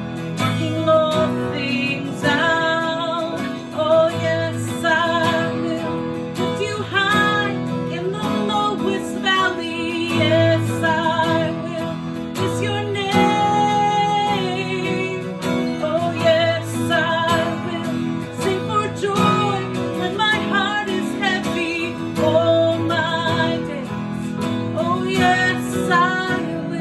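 Worship song played on acoustic guitar, with singing over the strummed chords.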